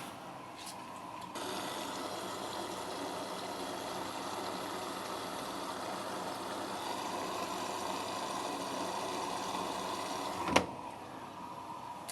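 Washing machine running with a steady whirring noise and a faint hum, then a single sharp click near the end, after which the noise is quieter.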